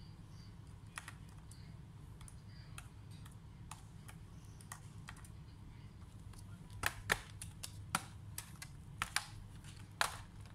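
Small plastic and metal clicks from a screwdriver working the bottom-cover screws of an Acer Swift 3 SF315-51G laptop. In the last few seconds comes a run of louder, sharper snaps as the bottom cover is pried off and its clips let go.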